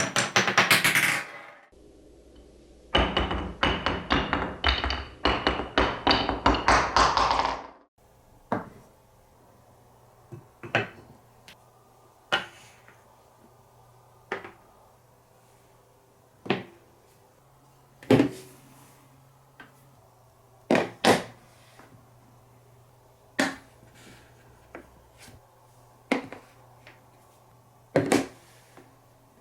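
Marbles clattering down a wooden stair-step marble run: a short burst of rapid clicks at the start, a longer stretch of rapid rattling clicks lasting about five seconds a few seconds in, then single sharp knocks of marble on wood every second or two.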